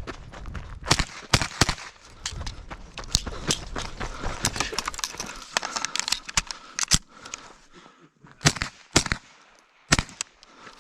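Semi-automatic long-gun shots fired at irregular intervals, singly and in quick pairs, with a brief lull about seven seconds in before a few more shots.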